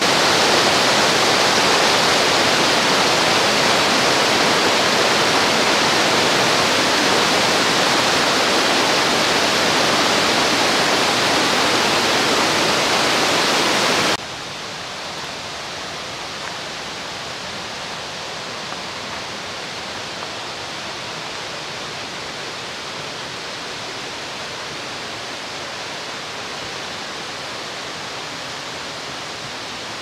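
Rushing water of a mountain stream, a steady, loud roar. About halfway through it cuts abruptly to a quieter, steady rush of water.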